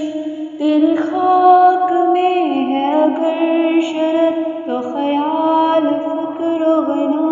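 A voice singing a slow, chant-like melody in long held notes that slide between pitches.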